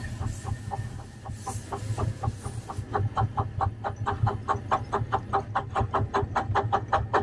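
Small ride-on steam locomotive's exhaust chuffing in a steady rhythm as it pulls the train, picking up pace and growing louder about three seconds in to roughly four chuffs a second, over a low rumble of wheels on rail.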